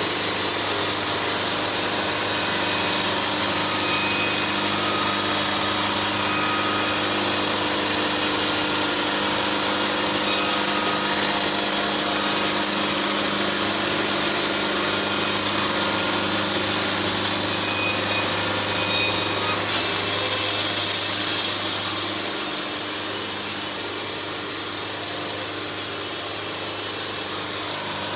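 Band sawmill running and sawing through a log, a steady hissing cut over the engine's hum. The level eases slightly about 22 seconds in.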